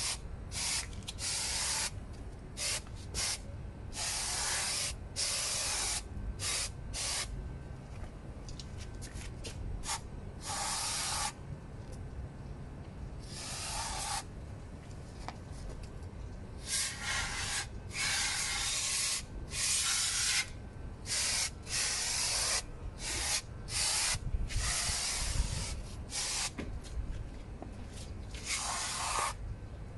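Aerosol brake spray can hissing in many repeated bursts of uneven length, from short puffs to about a second and a half, as the brake pads and rotor disc are sprayed.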